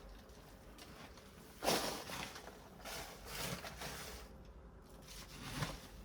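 Hands digging through soil in a potato grow bag, making a few short rustling, scraping sounds, the loudest about a second and a half in.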